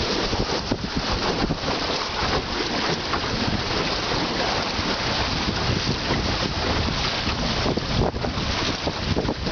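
Steady wind buffeting the microphone over the rush and splash of water along the hull of a Drascombe Lugger, a small open sailboat, sailing in about 10–15 knots of wind.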